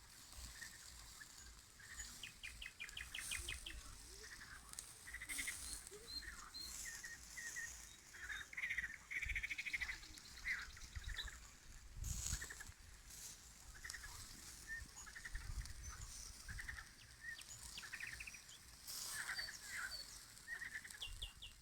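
Nightingale singing: varied phrases of fast clicking trills and short whistles, one after another. Wind is gusting on the microphone.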